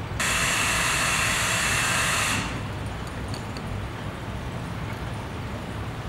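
A steady hiss that starts abruptly and cuts off about two seconds later, over a low steady hum.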